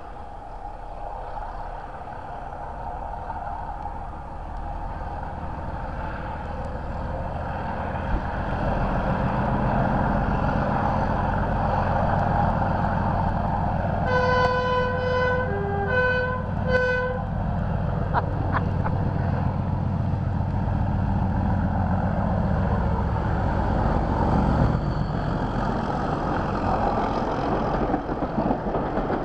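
Class 31 diesel locomotive's English Electric V12 engine working hard (thrash), growing louder as it approaches. About halfway through, its horn sounds a few short two-tone blasts. Near the end the locomotive passes and its coaches roll by.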